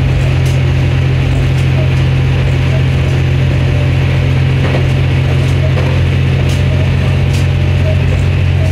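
IRT355 diesel railcar running along the line, heard from the driver's cab: a steady low drone from the car with light rattling and occasional clicks.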